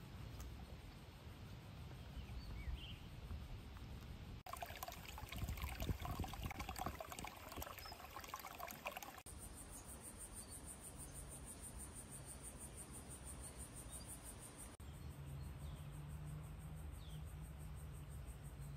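Faint outdoor grassland ambience in several short cuts: a low wind rumble on the microphone, scattered faint chirps, and in the middle a high, evenly pulsing insect trill.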